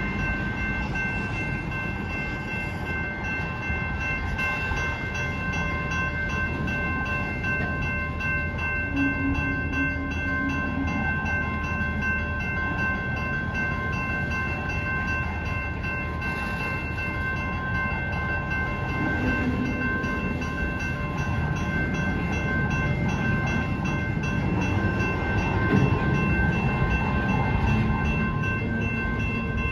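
Loaded welded-rail flatcars rumbling past slowly on the rails, while a grade-crossing warning bell rings steadily over them.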